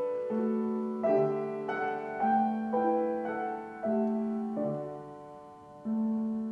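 Solo piano playing a slow, gentle piece, with chords struck every half second to a second over a repeated low note.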